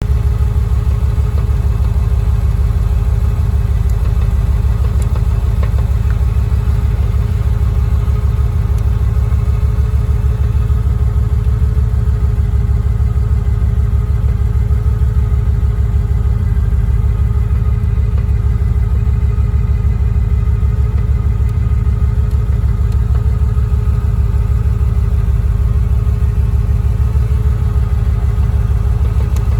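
Car engine idling steadily in neutral, with a rattle from a newly installed short shifter that comes on in neutral.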